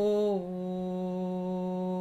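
A woman's voice toning a long, slow sung note in the low range, stepping down in pitch about half a second in and then holding steady.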